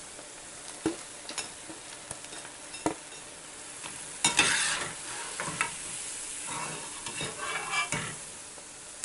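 Chana dal pakodas sizzling as they deep-fry in hot oil, with a metal slotted skimmer stirring and lifting them out, making a few sharp clicks against the pan. A louder surge of sizzling comes about four seconds in.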